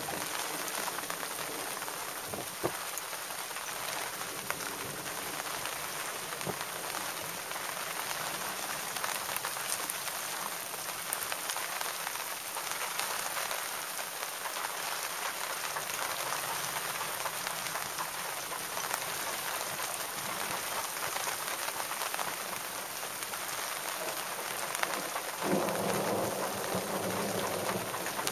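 Steady rain falling, with a low rumble of thunder rolling in about three seconds before the end.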